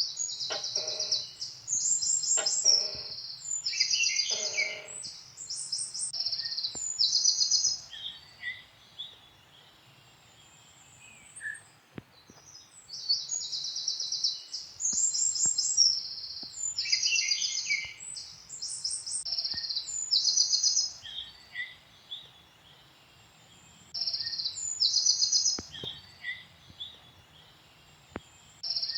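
Songbirds chirping in high, rapid trills, in phrases several seconds long separated by pauses of a few seconds.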